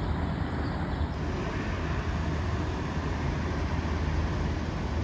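Steady low rumble of vehicle noise, with the hiss above it shifting slightly about a second in.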